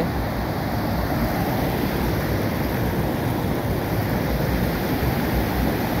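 Steady rushing roar of a river at high flow pouring over rock ledges and rapids at a waterfall, with a low wind rumble on the microphone.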